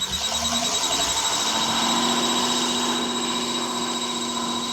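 Ford 7.3-litre gasoline V8 engine revved up and held steady at around 2000 RPM, a steady multi-toned running sound after a brief rise at the start; the engine has a slight misfire on cylinder 1 that sets no trouble code.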